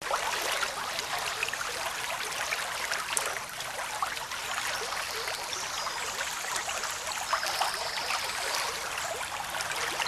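Stream water running and splashing over rocks: a steady rushing with many small splashes and trickles.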